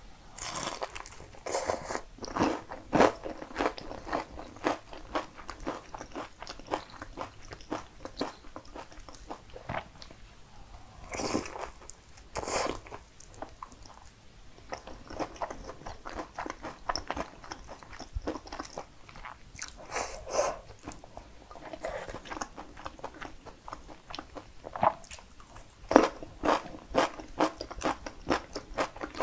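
Close-up crunching and chewing of a crispy breaded mozzarella cheese pork cutlet: a steady run of sharp crunches, with louder bites about eleven, twenty and twenty-six seconds in.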